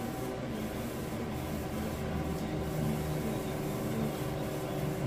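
A steady low mechanical hum, with no distinct knocks or clicks.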